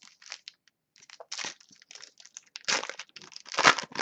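A trading-card pack wrapper being torn open and crumpled, a string of crinkling crackles with two louder rips, one a little under three seconds in and one near the end.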